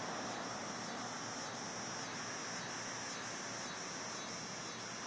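Insects calling: a high trill pulsing in even beats a little under twice a second, over a steady hiss of outdoor background noise.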